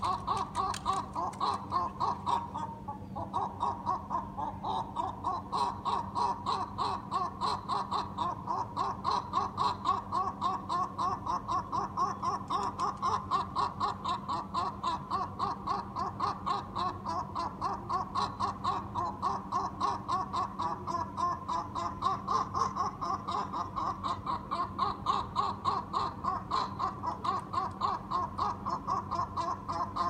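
A gull calling in a long, unbroken run of short rhythmic calls, about four or five a second: the call a gull gives while mating.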